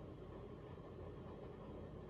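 Emerson Maui Bay ceiling fan with palm-leaf blades running on low speed: a faint, steady hum and whir.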